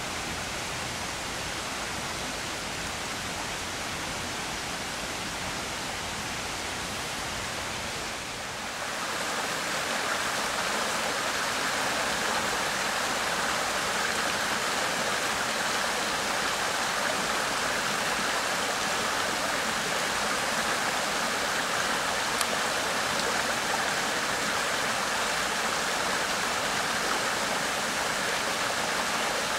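A small forest brook running and splashing over rocks, a steady rushing that steps up louder about nine seconds in, when the stream comes close. Before that, a quieter, duller rush of the same kind.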